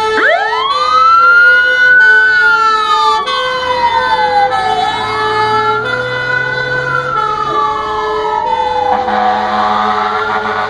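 Fire engine siren winding up and wailing in slow rises and falls as a Camiva Renault fire engine pulls out of its station on a call. Steady horn blasts sound on and off over the siren.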